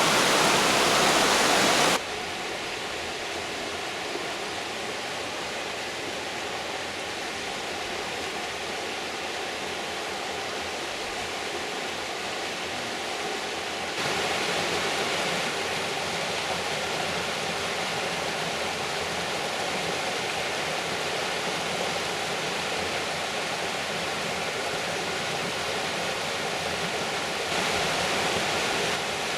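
Iron Creek's water rushing steadily over rocks, a continuous even hiss. The level drops suddenly about two seconds in and steps up again about halfway through and near the end.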